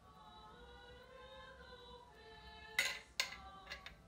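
Soft background music with sustained tones, and a spoon clinking sharply against a container twice about three seconds in, followed by a couple of lighter taps.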